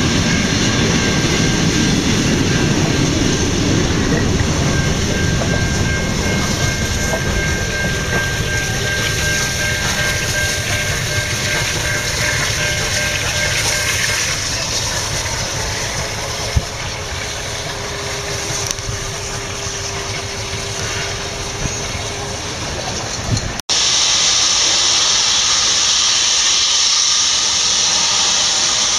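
A steam-hauled passenger train of NSW C38 class locomotive 3801 rolling past with a steady rumble and wheel clatter, fading a little after about 14 seconds. Near the end it cuts to a loud, steady hiss of steam from the locomotive as it starts away.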